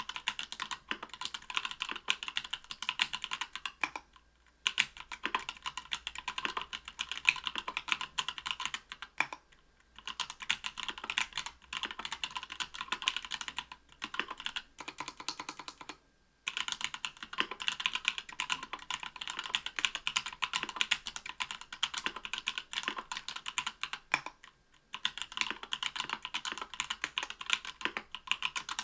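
Continuous fast typing on a mechanical keyboard with stock, unlubed SP-Star Polaris Gray 67g linear switches, an aluminium plate and Cherry-profile PBT keycaps. The keystrokes come in dense runs, with brief pauses about four, nine, sixteen and twenty-four seconds in.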